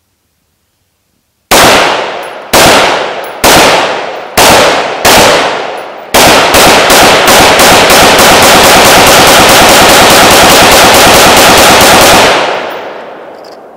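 AR-15 rifle firing: five single shots about a second apart, then a rapid string of shots, about seven a second, lasting about six seconds. The reports ring out and fade after the last shot.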